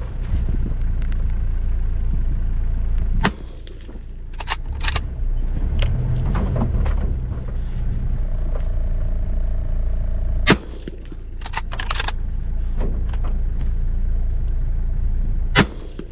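Three sharp rifle shots, about seven and five seconds apart, over a vehicle engine idling; the engine sound dips after each shot and rises back. Lighter clicks fall between the shots.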